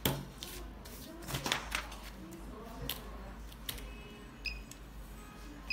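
Handheld thermal inkjet coding printer being set on paper and moved across it to print: a few knocks and light clicks of its plastic body against the paper and desk. Two short high beeps come near the end.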